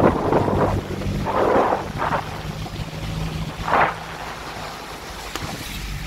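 Wind rushing over the microphone of a slowly moving car, with tyres on a wet, hail-covered road and a low engine hum underneath. The rush comes in swells, the loudest a little under four seconds in.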